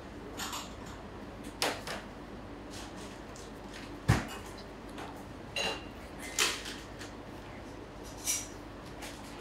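Dry spring roll wrapper crinkling and rustling in short bursts as it is rolled up by hand on a wooden cutting board, about half a dozen times. There is one sharper knock about four seconds in; the wrapper is partly dried out by the hot kitchen.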